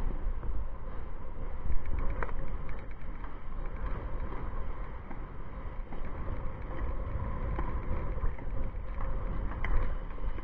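Wind rumbling and buffeting on the microphone in the rain, with a few short sharp ticks.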